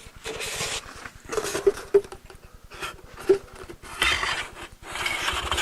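Handling noise from an air rifle being taken apart: irregular rustling and scraping with a few sharp clicks as the air reservoir is slid down and forward off the gun. There is a longer stretch of scraping near the end.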